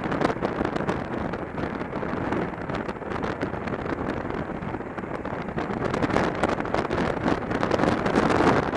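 Wind buffeting a helmet-mounted camera microphone on a moving motorcycle, with the bike's engine running underneath. The buffeting gets louder near the end.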